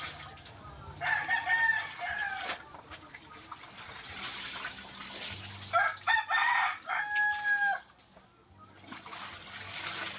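A rooster crows twice: a shorter crow about a second in and a longer, louder one around six seconds in. Between and around the crows, water splashes and pours as a wet garment is lifted and wrung over a basin.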